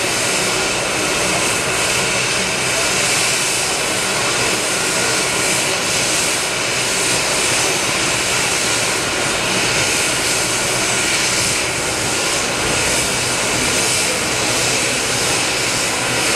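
Leonardo AW139 helicopter's twin turboshaft engines and rotors running steadily on the ground, kept turning during a hot load of a patient. A constant turbine whine with a faint high steady tone, never rising or falling.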